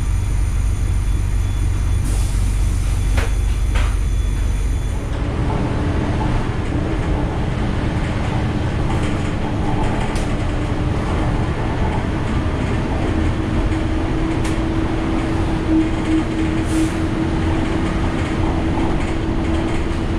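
Ikarus 435 articulated bus heard from inside: the diesel engine's low rumble, with a few clicks about three seconds in. From about five seconds in the ride noise grows rougher and a steady whine sets in, rising slightly in pitch.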